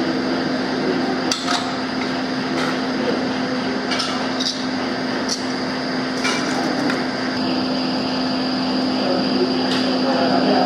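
Sharp metal clinks and taps of small parts being handled and fitted onto a 70cc motorcycle engine's aluminium cylinder head, coming irregularly every second or two, over a steady low hum.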